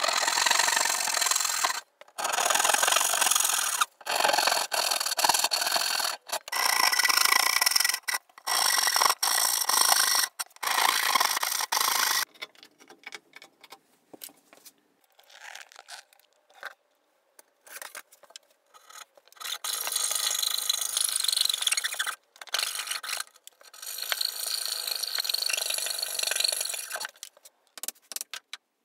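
Hand saw cutting through a thick spruce board in steady strokes, loud, in runs of about two seconds for the first twelve seconds. Then come quieter scattered knocks and handling sounds, and two more long stretches of rasping sawing noise later on.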